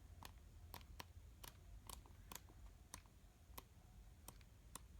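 Faint light clicks and taps at uneven spacing, about two a second, from handling the album and its cards, over a low steady hum.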